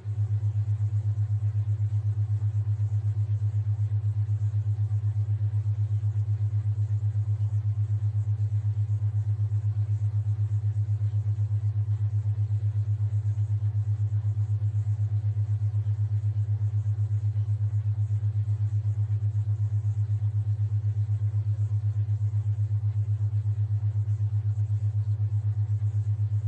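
Steady low tone, pulsing evenly and rapidly in loudness: a theta-wave tone of the kind laid under subliminal audio.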